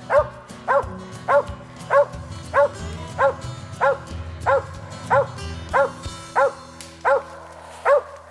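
A hunting dog barking over and over in an even rhythm, about thirteen barks at roughly one and a half a second, with background music running underneath.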